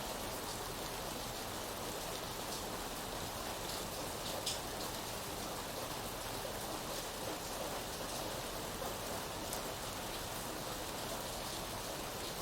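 Steady rain falling, with a few sharper drop hits standing out, the clearest about four and a half seconds in.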